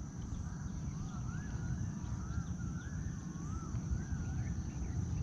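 A bird calling in a string of short wavering whistles, about one a second, over a steady high insect drone and a low rumble.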